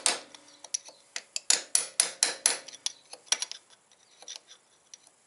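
Hammer striking a steel punch to flatten the bent-over tab of the soft steel lock washer behind a motorcycle front sprocket nut: sharp metallic taps. There is one tap at the start, then a quick run of about five taps from about a second and a half in, and a couple more, fading to faint ticks near the end.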